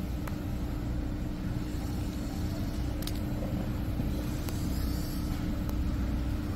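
Gas torch burning with a steady low roar and hum while it heats a seized bolt, with a few light metal clicks.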